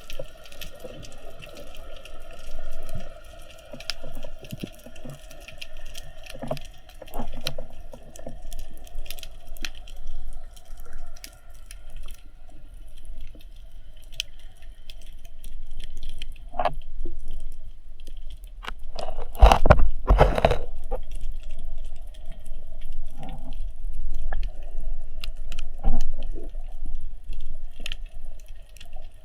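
Underwater ambience during a spearfishing dive: a constant crackle of small sharp clicks over a faint steady hum. A louder rush of water comes about twenty seconds in.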